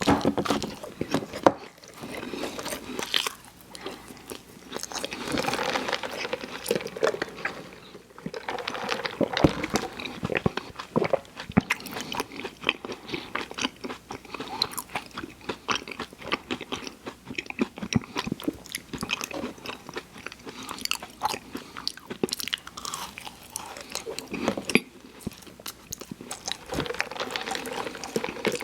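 Close-miked chewing and crunching of fast food: a steady run of wet bites and crackling chews.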